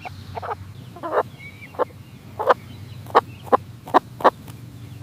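Domestic hen clucking: about eight short clucks, coming quicker in the second half, over a steady low background hum.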